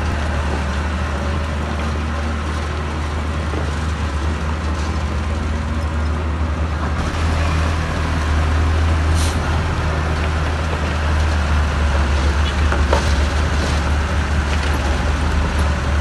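Heavy earthmoving machinery's diesel engine running steadily with a deep hum, growing louder about seven seconds in and again near the end.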